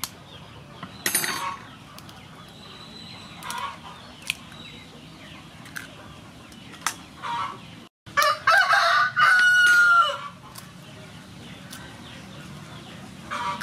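A rooster crows loudly for about two seconds, starting about eight seconds in, with a shorter chicken call about a second in. A few sharp taps of a metal spoon cracking an eggshell fall in between.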